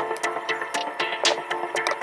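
Background music with a steady beat over held tones.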